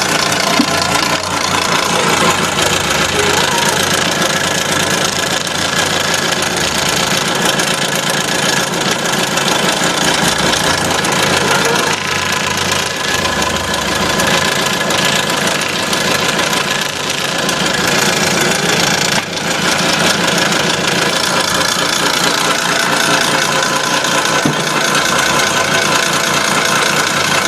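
Yutaka YSC-500F electric scroll saw running continuously, its reciprocating blade cutting a shape out of a wooden board.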